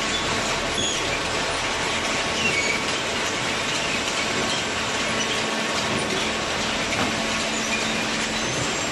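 Steady machinery running noise, dense and unbroken, with faint short high squeaks scattered through it.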